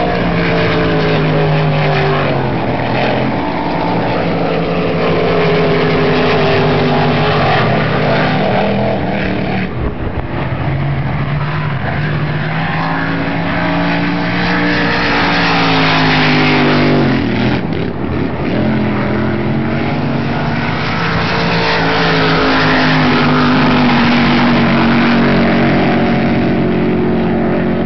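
Racing powerboat engines running flat out as the boats pass at speed, the pitch falling away as each one goes by, over a steady hiss.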